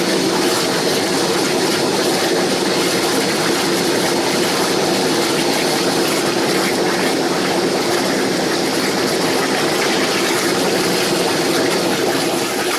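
Bathtub spa air blower running steadily, forcing air through a PVC pipe into a bucket of water that bubbles and churns vigorously.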